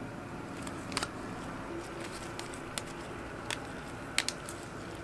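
A few short, sharp plastic clicks as a lipstick tube is handled in gloved hands and its clear cap is taken off. They come over a steady background noise.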